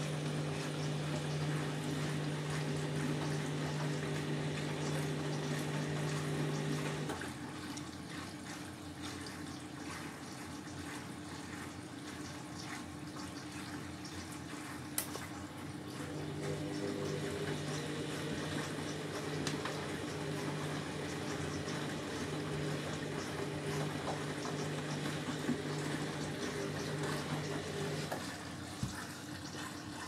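Candy Grand'O Vita front-loading washing machine filling for its softener rinse: water pouring steadily into the drum, with a low machine hum that stops about seven seconds in, comes back about halfway and stops again near the end. A single sharp tick about halfway through.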